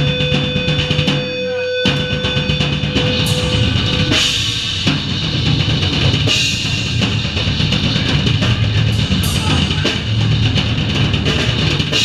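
Rock band playing live and loud, the drum kit to the fore with bass drum, snare and cymbals driving under electric guitar. There is a short stop about a second and a half in before the full band crashes back in.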